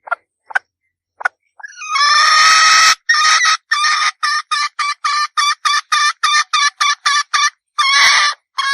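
Red junglefowl hen calling. A few short notes lead into a long harsh note, then a quick run of about fourteen short calls at roughly three a second, ending in two longer notes.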